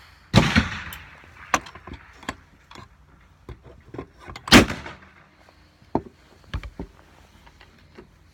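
Two loud, echoing bangs about four seconds apart. Between and after them come light metallic clicks and taps from a percussion revolver and powder flask being handled while the chambers are charged with black powder.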